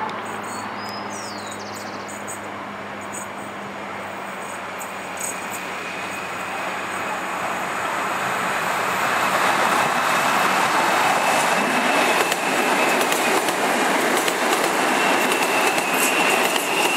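CSR Qingdao Sifang electric multiple-unit train approaching and passing close by: the running noise of wheels on rail swells over the first half and stays loud. A high, steady wheel squeal and a run of clicks over the rail come in as the cars go by.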